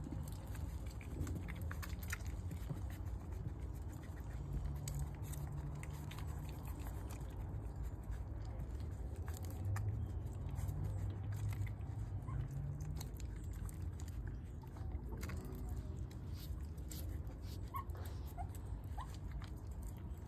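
A litter of one-month-old puppies nursing from their mother dog: scattered short wet clicks of suckling over a steady low rumble.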